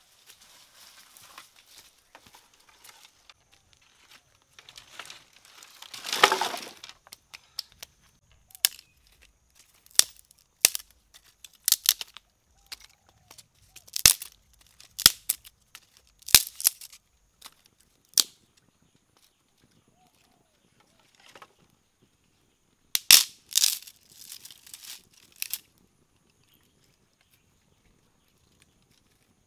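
Dry sticks being snapped and broken by hand, sharp cracks at irregular intervals, with a longer rustling crash of wood about six seconds in.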